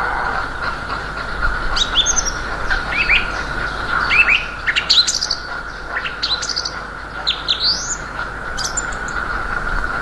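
Small songbirds chirping, with short, quick downward-sweeping notes coming in little runs throughout, over a steady hum and a low wind rumble.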